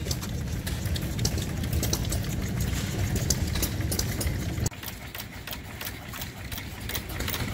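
Small stationary engines running with a steady low drone and a fast run of clicks. About two-thirds of the way through, the sound cuts suddenly to a quieter engine running with a lighter, regular ticking.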